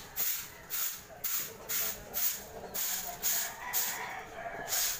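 Broom sweeping a layer of volcanic ash off pavement: rhythmic scraping swishes, about two strokes a second.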